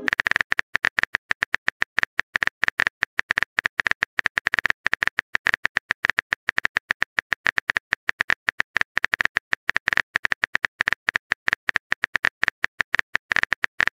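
Phone keyboard typing sound: a rapid, even run of short clicks, many a second, as a text message is typed out letter by letter.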